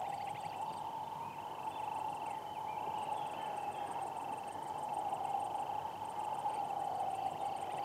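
Crickets chirping in repeated groups of short, rapid high pulses over a steady insect drone.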